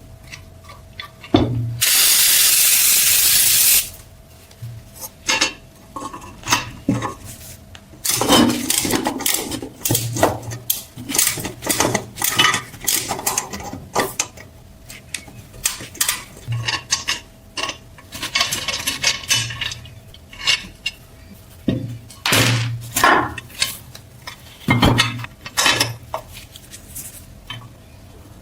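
Hand work on metal parts: a burst of spray hissing for about two seconds near the start, then a long string of small metal clinks, taps and knocks, over a faint steady hum.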